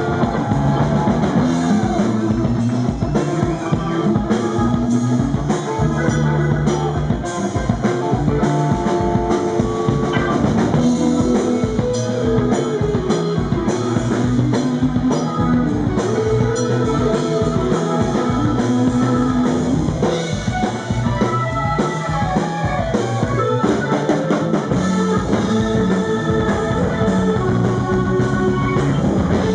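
Live rock band playing an instrumental stretch: electric guitar over a drum kit, at a steady loud level.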